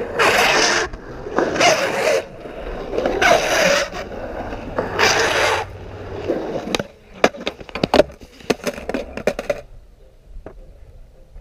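Skateboard wheels rolling and grinding over a concrete skatepark in four loud surges, followed by a run of sharp clacks and knocks as the board and rider hit the concrete in a fall.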